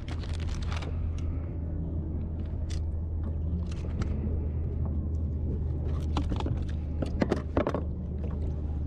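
Scattered clicks and knocks of metal fishing pliers and lip grips as a hook is worked out of a flathead, several in a cluster about six to seven and a half seconds in, over a steady low rumble.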